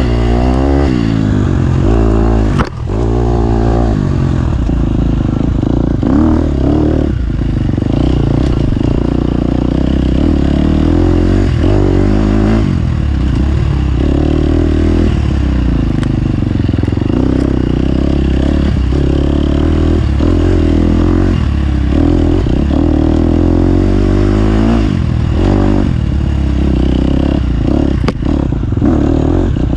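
Dirt bike engine revving up and down repeatedly under race riding, with clatter and a few sharp knocks from the bike.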